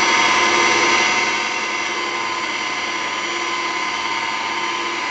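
Ron Popeil electric pasta maker running, its motor giving a steady, loud drone as it mixes and pushes dough out through the die. It eases slightly about a second in and then holds steady.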